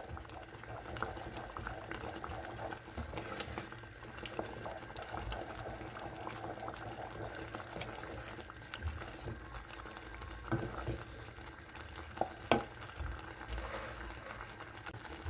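Milk custard bubbling as it thickens in a stainless steel saucepan while a wooden spoon stirs it, with two sharp knocks about ten and twelve seconds in.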